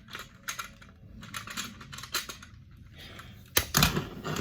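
Small plastic LEGO bricks clicking and clattering as they are handled and pressed together, with a louder knock about three and a half seconds in.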